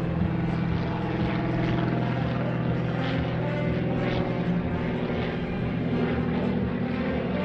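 DHC-1 Super Chipmunk aerobatic plane flying past, its piston engine and propeller running with a steady, droning note.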